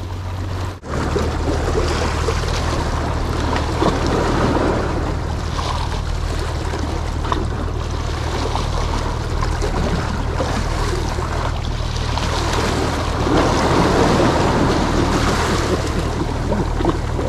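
Small sea waves washing and splashing against shoreline rocks, with wind rumbling on the microphone.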